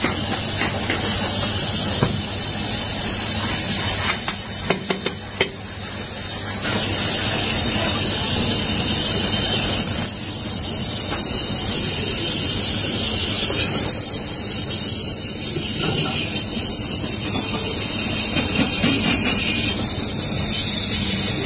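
Aluminium kadhai spinning on a lathe while a hand-held cutting tool shaves its surface, a steady high metal-cutting hiss, with a few sharp clicks about four to five seconds in.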